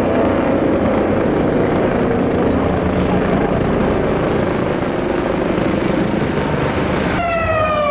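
Helicopter flying over with a steady rotor and engine noise. Near the end a loud pitched tone enters and falls steadily in pitch.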